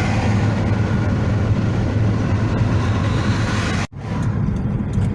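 Steady engine and tyre rumble inside a moving car's cabin. About four seconds in, the sound cuts out for an instant, and afterwards the hiss is softer.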